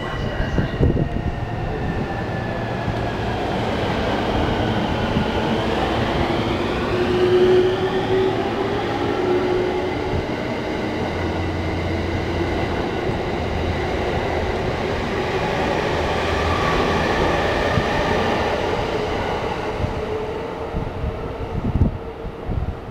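E231-series electric train running into a station: traction motor whine gliding in pitch over wheel and rail noise, with a few knocks and the sound dropping away near the end as the train comes to a stand.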